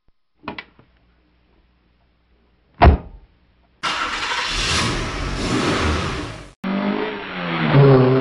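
Car engine sound effects: two short hits, then a car engine revving hard for a few seconds, cut off, and a revving engine whose pitch dips and then climbs again.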